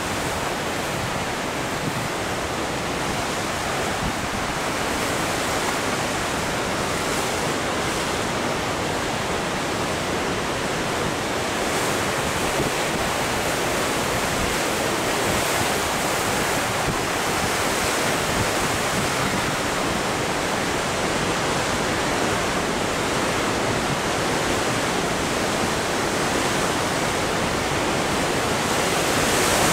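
Heavy ocean surf breaking and washing among shoreline rocks: a steady rush of white water, growing a little louder near the end.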